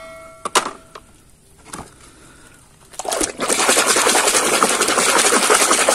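A hand splashing and churning in a basin of foamy, muddy water as a plastic toy is scrubbed. This starts about halfway in with loud, dense splashing, after a quieter stretch with a few light plastic knocks.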